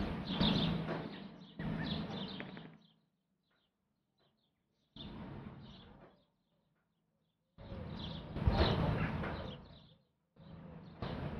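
Outdoor background noise with a steady low hum and faint bird chirps. It cuts out to dead silence three times and comes back.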